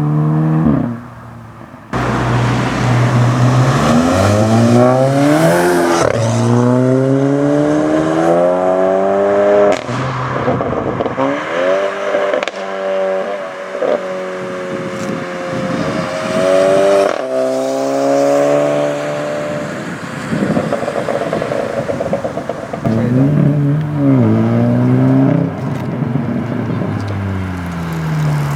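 Volkswagen Golf engines with aftermarket exhausts revving and accelerating in a string of short clips, the engine note repeatedly rising and falling in pitch, with abrupt changes from one car to the next.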